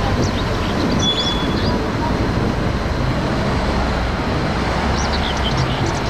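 Diesel engine of a large Liebherr all-terrain mobile crane running with a steady low rumble, amid street traffic noise.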